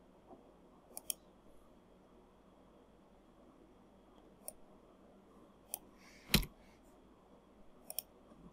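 Computer mouse clicks, single and in quick pairs, scattered through a quiet stretch, with one louder, duller thump a little past six seconds in.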